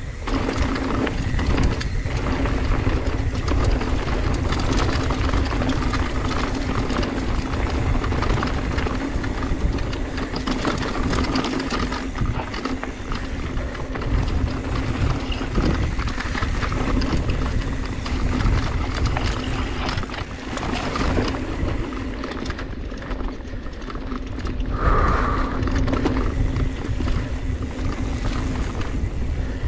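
Mountain bike riding fast down a dry dirt singletrack: knobby tyres rolling over dirt and loose stones, the bike rattling over the bumps, and wind rushing over the microphone.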